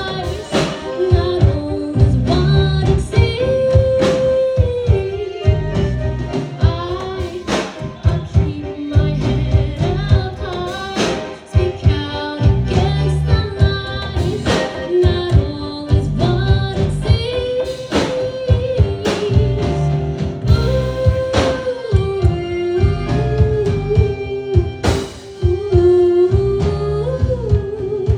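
A live band playing a song, with a sung melody over steady drum hits and a heavy bass line.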